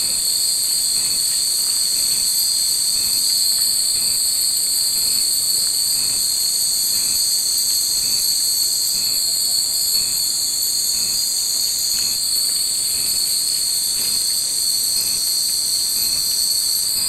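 Cicadas in a steady, high, unbroken chorus, with a faint pulse about once a second beneath it.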